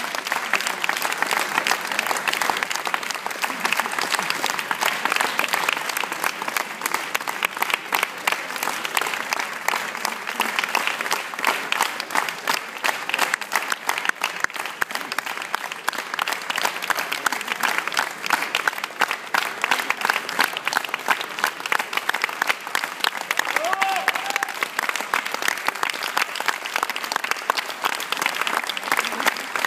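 Audience applauding in a large hall: dense, steady clapping from many hands.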